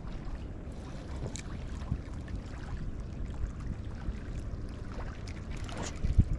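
Wind buffeting the microphone as a steady low rumble, with a few faint ticks and clicks over it.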